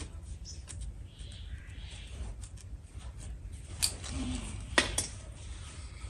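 Scattered sharp clicks and small clinks of small metal parts and wiring being handled, the loudest a little under four seconds in and twice near five seconds, over a low steady rumble.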